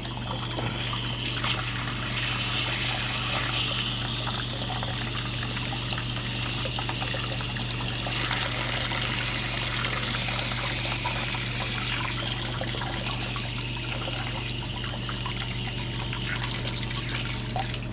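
Water running steadily out of a water heater's drain valve, carrying sediment out of the tank.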